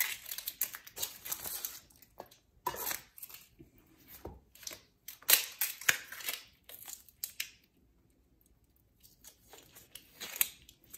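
Dry, papery onion skin being peeled off an onion half by hand: irregular crackling and tearing rustles, with a pause of a second or so about three-quarters of the way through.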